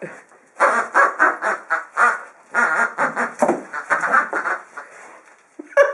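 A dog chewing a squeaky toy monkey, making a rapid run of short squeaks about five a second that stops about four and a half seconds in.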